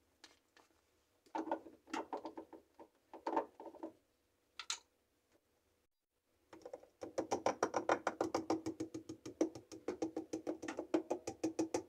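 Spice shaker of garam masala shaken over a food processor bowl: a few short bursts of rattling, then fast, even shaking of about ten strokes a second from about six and a half seconds in.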